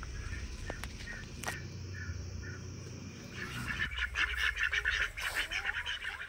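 Domestic ducks quacking in a rapid, dense series from about halfway in. Before that there is a low steady rumble with a few short bird chirps.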